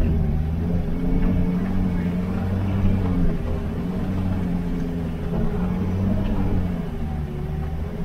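All-terrain vehicle's engine running at a steady pitch while driving over snow-covered lake ice, heard inside the cab as a loud drone with low rumble and a few faint knocks.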